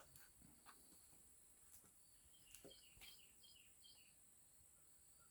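Near silence with a steady faint hiss; about two and a half seconds in, a bird gives a short run of about five faint chirps.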